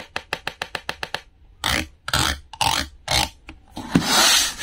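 A thin clear rod scraped across the openwork rim of a plastic basket: first a quick, even run of clicks, about eight a second, then several longer scraping strokes, the longest and loudest near the end.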